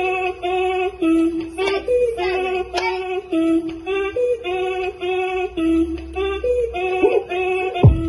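Upbeat dance music: a bouncy riff of short, evenly timed notes repeating over a low bass.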